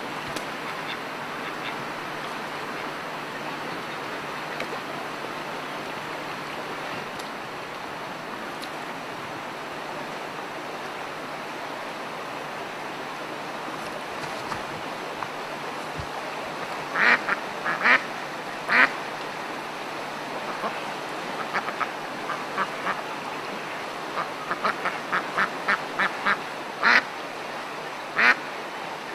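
Ducks quacking. A steady hiss runs alone for the first half; then come a few loud separate quacks, followed by a quick run of shorter quacks toward the end.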